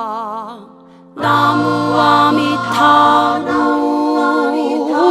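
Korean traditional vocal music: a solo singer holds a note with wide vibrato that fades away. About a second in, several voices enter loudly together in a chant-like refrain over steady low held notes.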